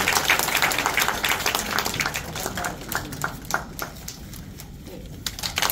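Audience applauding: dense clapping that thins out to scattered claps, then picks up briefly again near the end.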